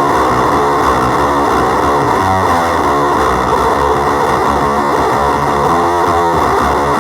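Electric guitar played through a Make Sounds Loudly Green Tree effects pedal, giving a distorted tone. It plays a continuous run of notes that change every fraction of a second, at a steady level.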